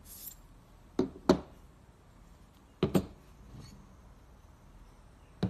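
Steel tool-holder parts (collet, clamping nut, spanner and tool holder) being handled and set down on a table, giving sharp metallic knocks: two quick pairs about two seconds apart, then a single knock near the end.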